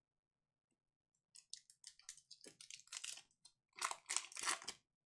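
Glossy trading cards being pulled apart where they have stuck together and handled, a run of short dry crackles that starts about a second in and is loudest near the end.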